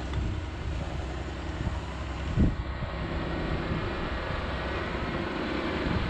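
John Deere tractor's engine running steadily under load as it pulls a multi-furrow reversible plough through the field, with a brief low thump about two and a half seconds in.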